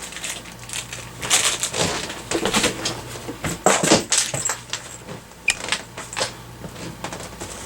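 Plastic packaging crinkling and rustling, with scattered irregular clicks and knocks, as small accessory parts are handled out of their box.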